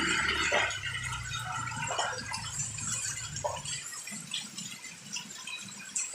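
Rain falling, with scattered drips and patters. A low engine hum fades out in the first part.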